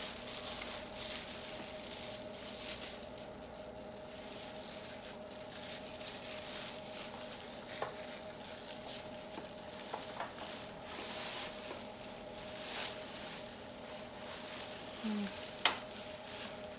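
Plastic oven bag crinkling and rustling in uneven spells as hands work it over a raw turkey, with a sharp click near the end.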